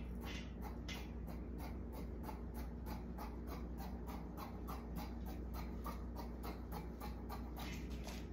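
Scissors snipping through cotton fabric in quick, even strokes, about four a second.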